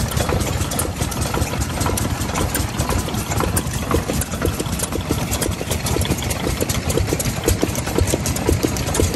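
Yanmar S6 single-cylinder stationary diesel engine running steadily at idle, with a regular knocking beat.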